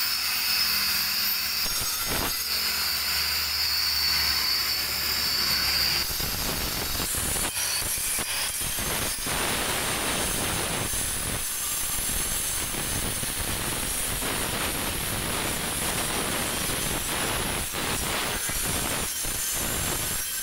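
Handheld angle grinder working a stone elephant statue: a steady high whine for the first six seconds, then a rough, harsher grinding noise that wavers as the disc is worked over the stone.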